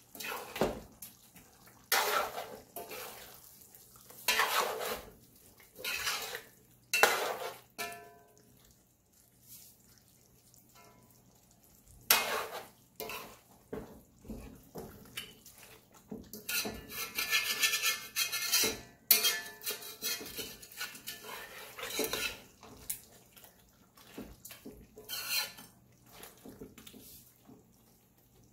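Metal spoon stirring chicken curry and potato chunks in a large metal pot, scraping against the pot in separate strokes every couple of seconds, with a longer run of steady scraping about two-thirds of the way through.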